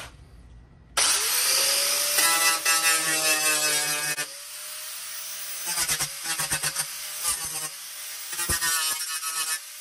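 Corded angle grinder starting up about a second in, its motor whine rising as it spins up, then an abrasive disc grinding paint off a steel car door panel down to bare metal. Past the middle the grinding comes and goes in short bursts as the disc is pressed on and eased off the panel.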